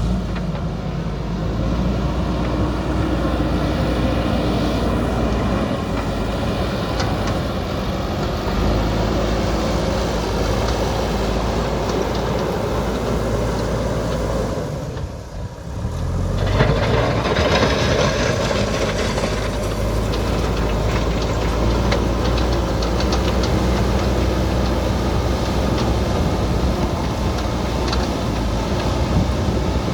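JCB backhoe loader's diesel engine running steadily. It drops off briefly about halfway through, then comes back with a harsher, noisier sound on top.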